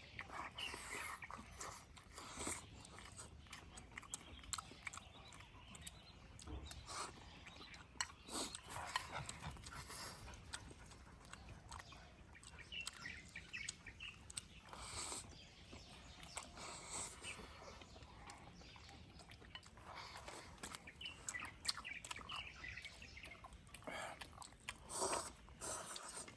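People eating a meal: irregular chewing and slurping with scattered sharp clicks.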